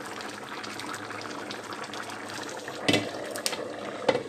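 Pot of white beans and tripe simmering under a glass lid, a steady bubbling. Near the end come two sharp clinks, the loudest sounds, as a hand takes the lid by its knob.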